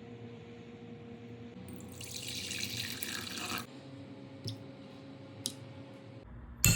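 Water running from a kitchen tap for about two seconds, then stopping abruptly. Two light clicks follow, and near the end a sharp knock, the loudest sound.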